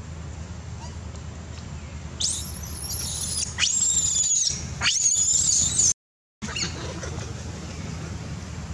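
A young macaque screaming: three long, very high-pitched screams in quick succession, each rising sharply at the start. The last one cuts off abruptly.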